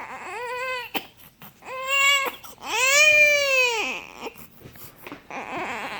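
Newborn baby crying: three wails, each rising and then falling in pitch, the third the longest and loudest, then a breathy fuss near the end.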